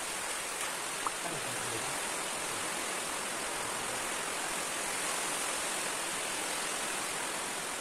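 Steady even hiss with no pitch to it, with one faint click about a second in.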